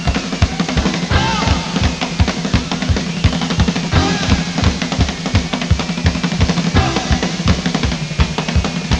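Background rock music with a fast, driving drum beat.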